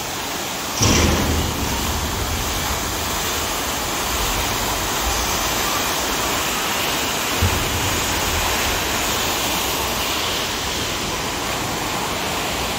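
Fast river rapids rushing over rocks, a steady whitewater rush that grows louder about a second in.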